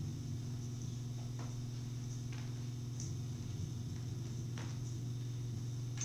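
Steady low electronic hum with a faint high hiss above it, and a few faint clicks.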